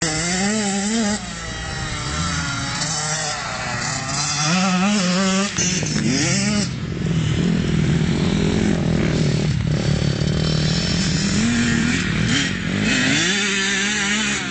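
Kawasaki KX85 two-stroke motocross bike's single-cylinder engine revving up and down as it is ridden round a dirt track, its pitch rising and falling again and again with the throttle and gear changes.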